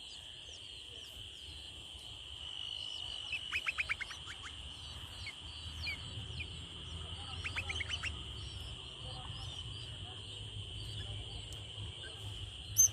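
Nestling birds chirping, begging for food: scattered short high chirps over a steady high-pitched drone, with two quick runs of rapid calls about 4 and 8 seconds in. A single sharp click comes just before the end.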